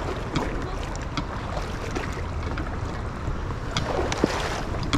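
Steady rushing of a small river's current, with a few faint clicks scattered through it.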